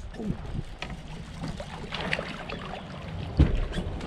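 Water sloshing and small knocks around a fishing kayak, with one sharp knock against the boat about three and a half seconds in.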